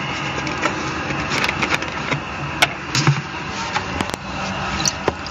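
Water from a garden hose running through a metal pipe nozzle into a vehicle's radiator filler neck: a steady rushing, with a few light clicks and knocks.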